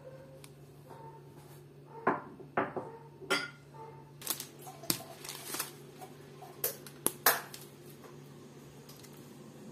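A foil-lined paper chocolate wrapper being torn open and handled, crinkling in a run of sharp crackles and snaps from about two seconds in until near the end, over a low steady hum.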